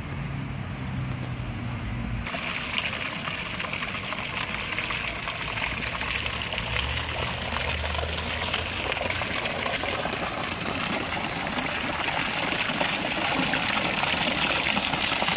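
Stone fountain's water jet splashing into its basin: a steady rushing splash that starts abruptly about two seconds in and grows a little louder near the end.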